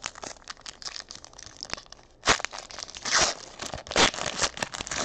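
Foil wrapper of a Panini Elite football card pack being torn open and crumpled by hand: a run of crinkling and tearing, with the loudest rips about two, three and four seconds in.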